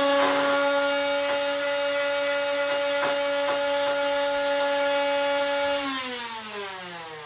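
Electric power tool motor running at a steady high whine, then released about six seconds in and winding down, its pitch falling as it fades.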